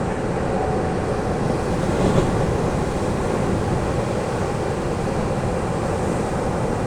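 Ocean surf washing steadily on a sandy beach, with a slight swell of a breaking wave about two seconds in.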